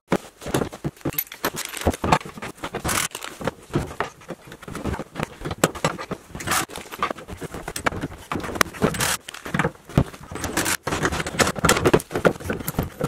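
Rapid, irregular clicks, knocks and scrapes of a BoxLink bed cleat and its mounting hardware being handled and fitted into the mounting slot in the pickup bed wall.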